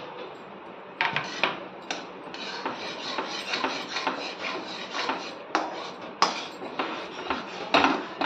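Metal spatula stirring chana dal into sugar syrup in a steel kadhai. A couple of separate knocks come first, then repeated scraping strokes against the pan, with a few sharper knocks near the end.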